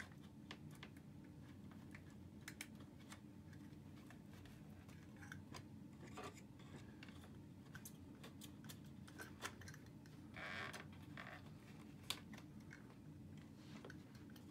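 Faint clicks and scrapes of a knife and plastic pry tool working under the edge of an aluminium door sill plate to cut through its glue, with a slightly longer scrape about ten seconds in.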